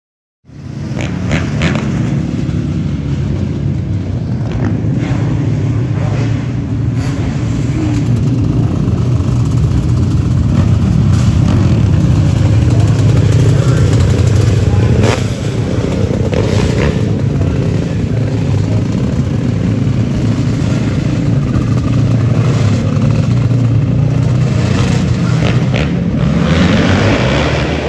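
Motor vehicle engines running loud and steady, starting abruptly about half a second in, with a few short clicks over the top.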